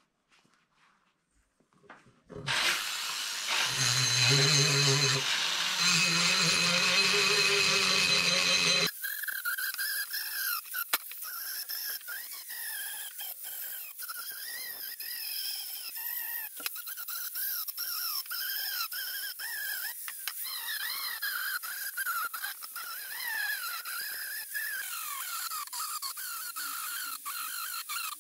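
From about nine seconds in, a handheld rotary engraving tool's burr cutting into a cast bronze sword hilt: a high squeal whose pitch wavers up and down, with many small clicks. Before that, after a couple of seconds of near silence, a louder rushing noise with a low hum runs for about six seconds and cuts off suddenly.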